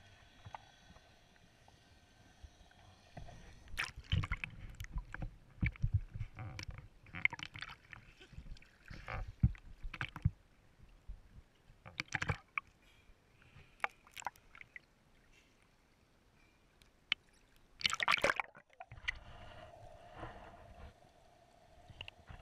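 Water noise on an action camera in and out of the water: irregular muffled knocks and sloshing against the housing, with a few sharp clicks and a loud rush of water a little before the end. After the rush, a steady low hum runs under the water sounds.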